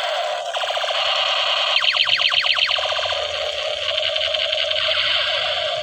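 A toy machine gun's electronic firing sound effect: a fast buzzing rattle from a small speaker. About two seconds in comes a run of quick falling laser-style sweeps.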